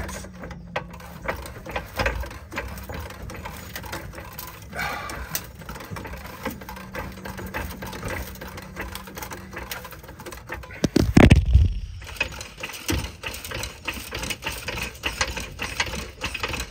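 Irregular clicking, knocking and rattling from an Airstream trailer's low-hanging underside panel being pushed and worked by hand. A loud low thump comes about eleven seconds in, and a faint steady hum runs under the first half.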